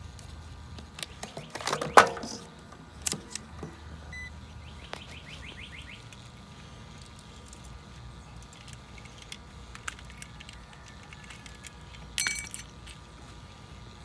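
Fieldpiece clamp meter and its test leads being handled: metallic clicks and jangling, with a loud clatter about two seconds in and another near the end, and a quick run of fast clicks a few seconds in as the meter's rotary dial is turned.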